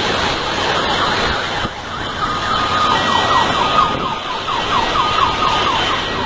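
Heavy rain and hail pouring down in a steady, dense hiss. From about two seconds in, an electronic siren sounds over it, switching between a held steady tone and rapid falling sweeps, about three a second.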